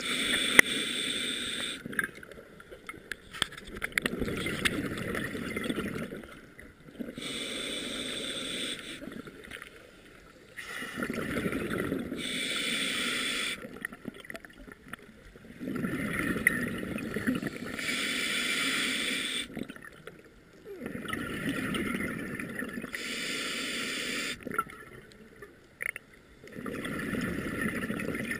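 Scuba diver breathing through a regulator underwater: a hissing inhale alternates with a low, bubbling exhale, one breath roughly every five to six seconds.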